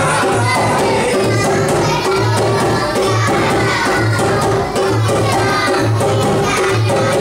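Folk-style song: a man sings to a steady dholak beat, the drum striking about twice a second.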